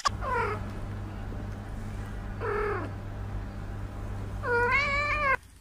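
Domestic cat meowing three times: two short meows falling in pitch, then a longer, drawn-out meow. A steady low hum runs beneath and cuts off abruptly near the end.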